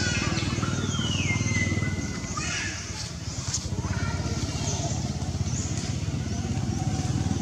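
An engine idling nearby gives a steady, fast-pulsing low rumble. Over it come a few short high squeaks and chirps, and about a second in one high call slides down and holds a lower note for a moment.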